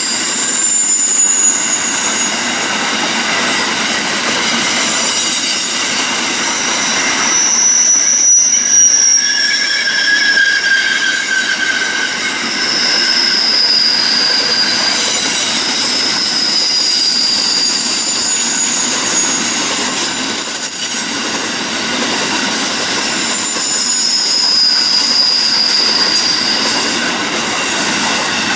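Grain train hopper wagons rolling past on steel wheels, with a steady rattle and rumble. Over it, the wheels squeal in long, high-pitched notes that slide slightly in pitch and come and go.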